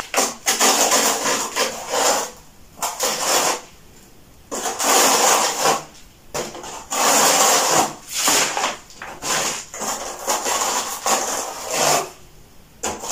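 Notched trowel scraping through cement tile adhesive in repeated strokes, each about a second long with short pauses between, combing ridges into the mortar.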